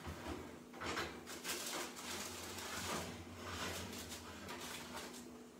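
A pizza pan being pulled out of a hot oven with oven mitts: irregular scraping and knocking of the pan against the oven rack, with a low steady hum underneath.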